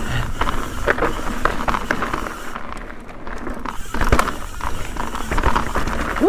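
Ibis Ripmo full-suspension mountain bike ridden fast down a dirt singletrack: tyres on dirt and leaves with frequent knocks and rattles from the bike over bumps and a steady low rumble of wind on the microphone. It ends in a short, sharp rising squeal.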